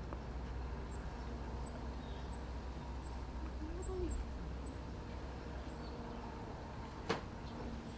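Quiet outdoor ambience: a steady low rumble with faint short high chirps now and then, a brief low hooting call about four seconds in, and a single sharp click about seven seconds in.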